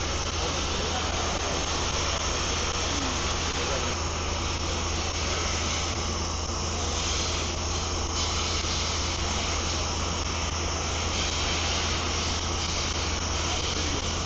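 Jacketed processing kettle system's motors and pump running steadily: a constant low hum under an even hiss.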